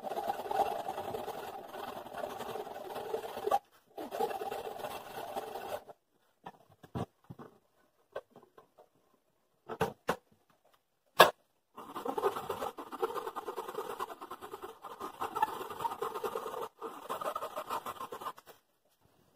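A hand tool scraping wood in quick continuous strokes on a small slotted joint clamped in a bench vise. It stops about six seconds in for a few scattered clicks and one sharp knock, then the scraping resumes.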